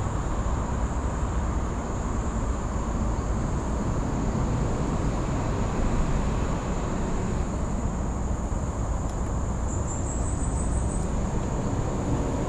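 Steady high-pitched insect drone from the forest, over a constant low rumble; a short run of quick rising chirps sounds about ten seconds in.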